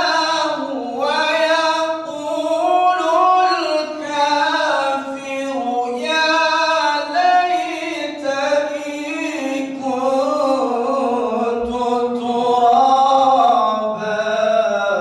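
Male qari reciting the Quran in melodic tilawah style: long, ornamented phrases of held, wavering notes, fading out near the end.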